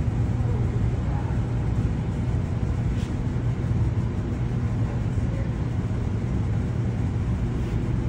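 Steady low rumble of a freight train's diesel locomotive moving slowly, muffled as if heard through window glass, with a faint click about three seconds in.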